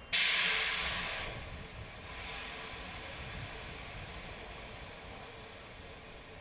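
A standing passenger train vents compressed air: a sudden loud hiss that fades over about a second, then a weaker, longer hiss that slowly dies away.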